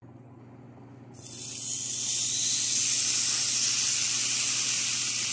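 Thick beef tenderloin steak sizzling on a hot ridged grill pan. The sizzle starts suddenly about a second in and swells to a steady hiss.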